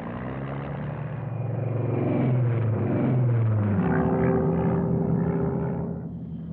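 Piston aircraft engine drone, its pitch gradually falling for about four seconds, then holding steady before easing off near the end.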